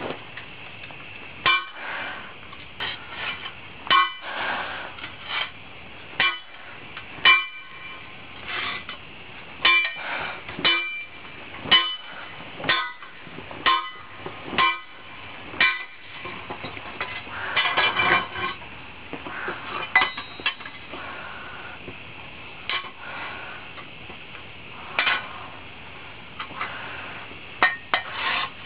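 Hand hammer striking a red-hot steel lawn mower blade on a makeshift anvil to flatten it: sharp metallic clanks with a short ring, about one a second at first, then fewer and further apart in the second half.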